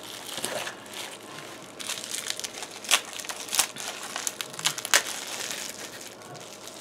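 Packing material rustling and crinkling as hands dig through a box of crinkle-cut paper shred and lift out wrapped items. A few sharper crackles come about three, three and a half, and five seconds in.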